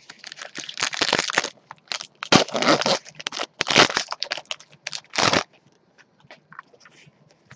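Foil trading-card pack wrapper crinkling and tearing as it is cut open with a knife and pulled apart, in a run of noisy bursts over about five seconds. After that come only a few faint rustles as the cards are handled.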